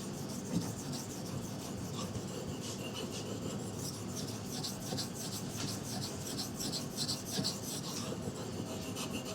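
Steel knife blade (a Bark River Fox River in 3V steel) stroked repeatedly across a wet water stone, a steady scraping with a quick run of short strokes. It is edge-finishing strokes at a slightly raised angle.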